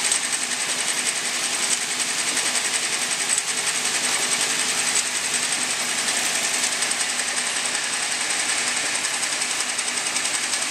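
Automatic 10ml vial filling and sealing machine running steadily: a rapid, even mechanical clatter with a constant high-pitched whine.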